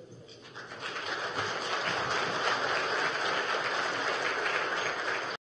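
Audience applauding. It swells up about half a second in and holds steady, then cuts off suddenly near the end.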